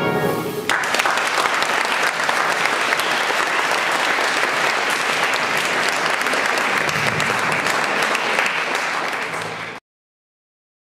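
A big band's final chord ends in the first second, then a concert audience applauds steadily. The applause cuts off abruptly near the end.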